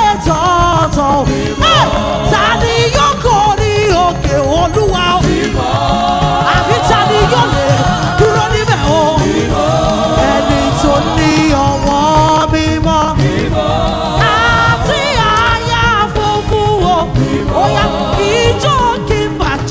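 Live gospel worship music: voices singing over a band with a steady beat.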